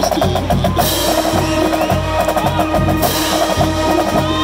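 College pep band playing in the stands: brass and sousaphones over a driving drum beat, with bass drum and cymbal crashes.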